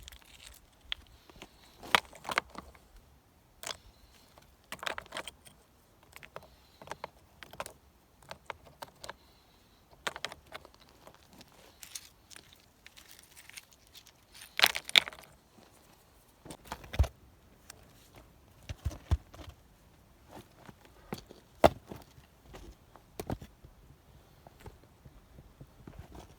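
Scattered knocks and clicks from hand building work with stone and wood, irregular and unhurried, with a few louder knocks about fifteen and twenty-two seconds in.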